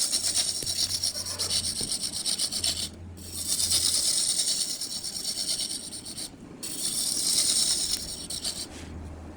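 Wood spinning on a lathe and being worked with a tool: a high, hissing rasp with fast fine ticking, in three passes broken by brief pauses.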